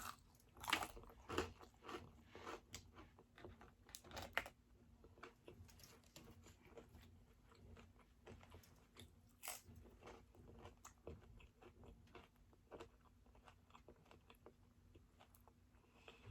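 A person chewing and biting food, with crisp crunches that come thick in the first few seconds and again around the middle, then softer, sparser chewing.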